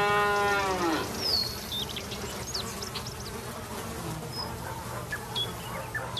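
A cow mooing, one long call that rises and falls in pitch and ends about a second in, followed by the steady buzz of flies and scattered short bird chirps.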